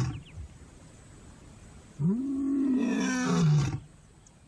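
Male lion roaring: one long call about two seconds in that rises and then falls in pitch, part of a territorial roaring bout proclaiming his hold on the territory.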